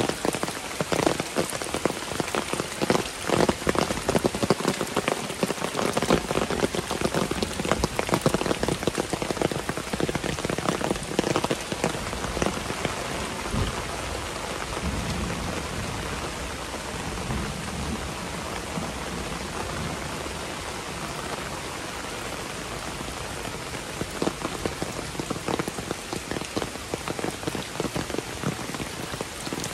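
Heavy rain falling: a steady hiss with many separate drops striking close by. The close strikes thin out in the middle stretch and pick up again near the end.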